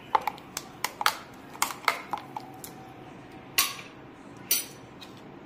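Steel spoon clinking against a stainless-steel mixer-grinder jar while stirring watermelon juice: quick, irregular clinks for about three seconds, then two louder knocks.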